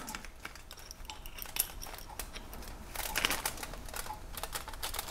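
Light metal clicks and scrapes as adjustable wrenches are set on a bearing puller's nut and tighten it, with a few sharper clicks about three seconds in.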